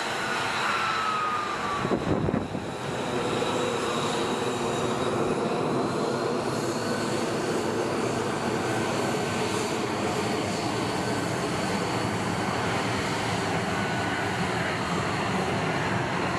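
Jet fighter engine running with a high, thin turbine whine over a dense rush. Its pitch falls over the first two seconds, there is a brief loud burst about two seconds in, and then the engine runs steadily.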